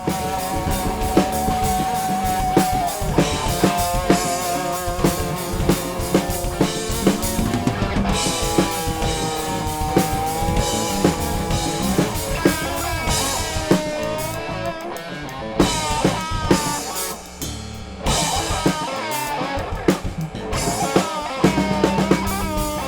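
A band playing: a drum kit keeps a steady beat under a lead electric guitar line with bends and vibrato.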